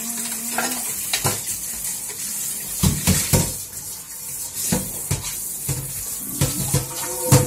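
Tap water running into a stainless-steel kitchen sink during hand dishwashing, with scattered knocks and clatter as a frying pan and dishes are handled against the sink, loudest near the end.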